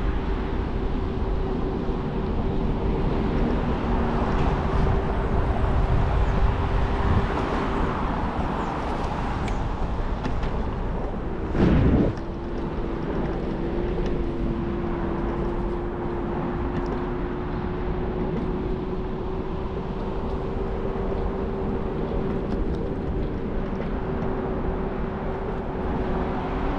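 Scooter riding along: a steady motor hum over wind and rolling noise, with one brief loud thump about twelve seconds in.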